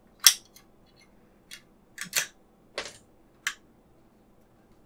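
About six short, sharp clicks and taps from handling a 1:24-scale diecast model car, its hinged trunk lid and metal body clicking against fingers. The loudest click comes about a third of a second in.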